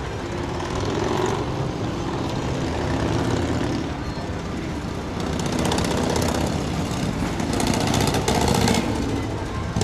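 Motorboat engines idling in the lock, a steady mechanical rumble.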